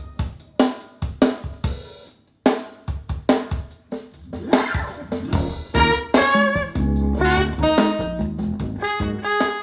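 Recorded music, jazz-style, played back over hi-fi loudspeakers: a drum kit with snare, hi-hat, cymbals and bass drum hitting sharply under pitched instrument notes, with a short break about two seconds in.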